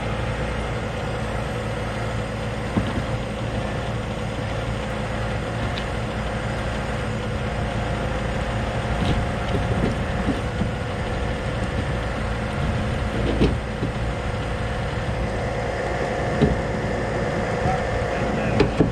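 Freightliner tow truck's diesel engine running steadily while its winch drags a pickup up out of a ditch, with a few sharp knocks along the way.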